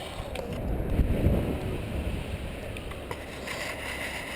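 Strong gusty wind buffeting the microphone in a low, uneven rumble, with a few light clicks and a brief hiss near the end.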